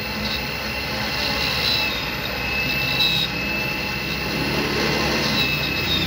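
Key-duplicating machine running, its cutter wheel grinding the cuts into a metal key blank as the carriage is guided along the original key. A steady grinding noise with a high, slightly wavering whine.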